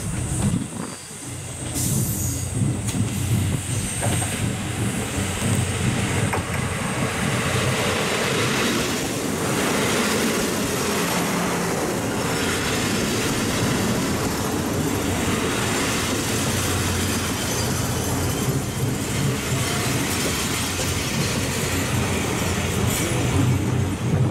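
KiHa 183 series diesel express train 'A-So-Boy!' pulling into a station: its engines and wheels run past close by as it brakes to a stop.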